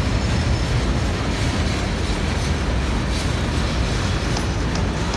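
Freight train's boxcars rolling past: a steady rumble of steel wheels on the rails.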